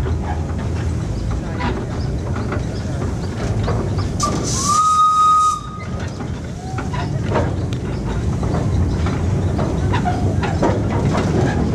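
A 1908 Borsig steam locomotive running with its train: a steady rumble and clatter of the wheels on the rails. About four seconds in, it gives one steam-whistle blast of just over a second, the loudest sound here, which cuts off sharply.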